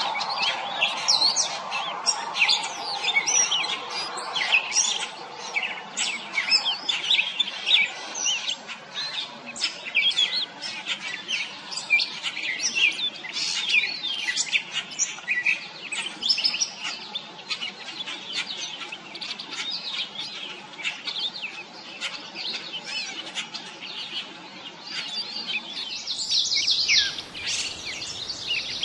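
Gray catbird singing: a long, continuous run of short, varied chirpy and squeaky notes with brief gaps between phrases.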